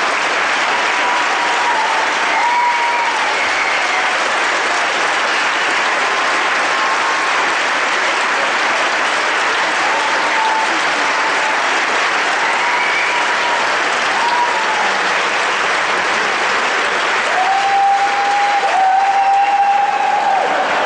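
Standing theatre audience applauding steadily, with a few drawn-out calls rising above the clapping, the longest near the end.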